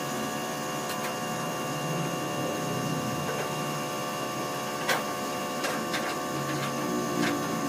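A steady mechanical hum with several fixed tones, broken by a few short sharp taps.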